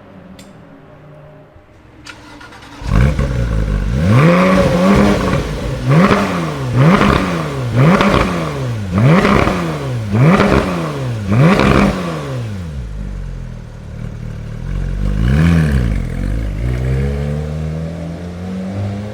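A performance car's engine starting up about three seconds in, then revved in about seven quick blips, roughly one a second, each rising and falling in pitch. It settles to idle, revs once more, and the engine note rises again near the end.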